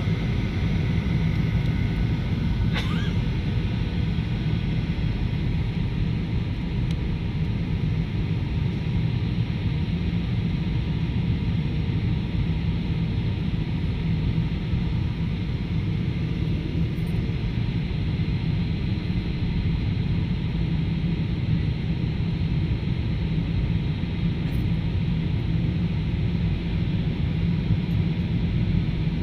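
Steady low roar of an airliner cabin on approach to landing: jet engine and airflow noise heard from inside the cabin, unchanging throughout, with a faint steady hum above it.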